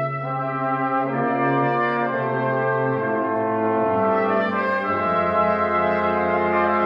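Brass quintet of trumpets, French horn, trombone and tuba playing sustained chords that change every second or two, with the parts moving against one another.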